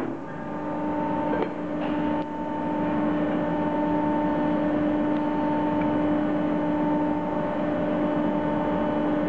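Bar and pipe shear running idle with a steady hum, its drive running on between cuts. A few short metal clicks come in the first two seconds.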